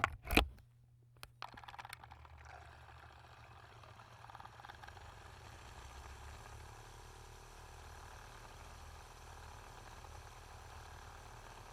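Nespresso Aeroccino milk frother: two sharp clicks at the start, then its whisk running with a steady low hum and a wavering swish of milk being whipped, building slightly.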